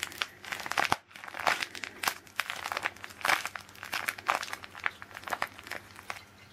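Crinkling and crackling of a Hershey's chocolate bar wrapper stuffed with foam as it is squeezed and bent in the hands: many irregular small crackles.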